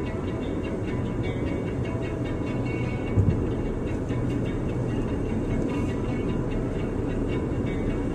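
Steady road and engine noise heard inside the cabin of a Toyota Land Cruiser 4x4 driving at speed, with a brief low thump about three seconds in.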